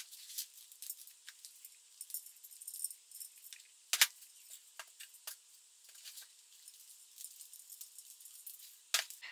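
Fast-motion audio of potting soil being scooped and poured from a flexible plastic tub into a ceramic planter: light, scattered clicks and rattles, with sharper clicks about four seconds in and near the end.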